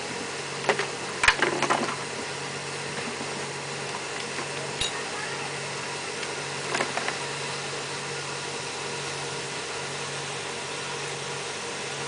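A machine runs with a steady hum, overlaid by knocks and clatter from the repair work: a cluster about a second in, then single knocks near five and seven seconds.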